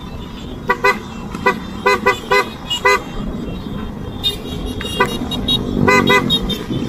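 Motorcycle horns giving short toots: a run of about seven quick beeps in the first three seconds and another fast cluster near the end, over the steady low rumble of engines and road noise of a group ride.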